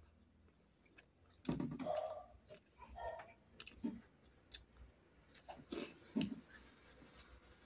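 Chewing and mouth noises while eating steamed momo dumplings, coming in irregular bursts with small clicks in between.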